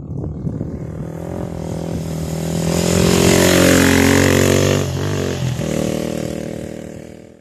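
Rally enduro motorcycle engine approaching and growing louder, passing close by about halfway through with its pitch falling as it goes. A steadier engine note follows and fades out near the end.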